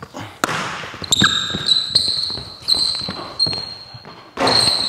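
Basketball bouncing on a hardwood court, a dribble roughly every second, with high-pitched sneaker squeaks between the bounces. A louder noisy burst comes near the end.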